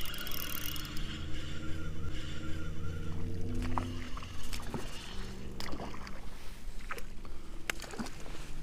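Kayak on the water: a steady hum with several held tones for about the first four seconds, then scattered knocks and clicks.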